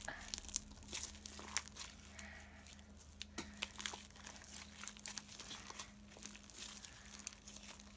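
Homemade fluffy slime being kneaded and stretched by hand, giving faint, irregular crackles and clicks over a faint steady hum.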